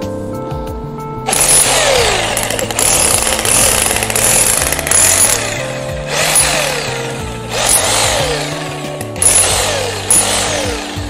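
Corded electric ALDO HMD 835 demolition hammer (900 W, 3600 blows a minute) with a flat chisel hammering into a concrete block. It starts about a second in and runs in four bursts with short pauses between them.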